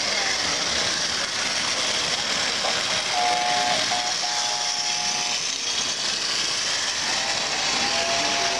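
American Flyer S-gauge model trains running on the track with a steady whir and hiss. About three seconds in a model train whistle sounds twice in quick succession, and a longer whistle starts near the end.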